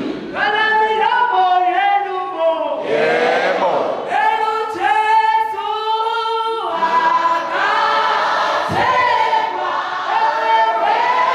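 A woman singing unaccompanied into a microphone, her voice carried through the hall's speakers, with other voices singing along. Long held notes that slide between pitches.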